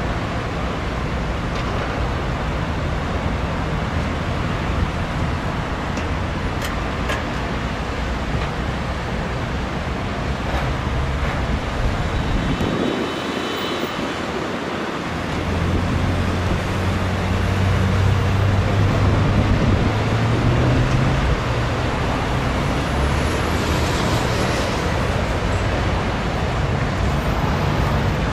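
Steady highway traffic noise with heavy diesel truck engines running. About halfway through the low rumble briefly drops away, then a deeper, steadier engine hum comes back louder.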